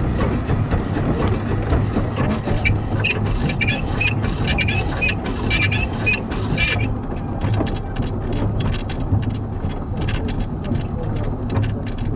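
Narrow-gauge Bagnall 0-4-0 saddle tank steam locomotive on the move, with a low pulsing beat about twice a second and many short clicks and knocks from the wheels on the track. A high hiss runs alongside and cuts off about seven seconds in.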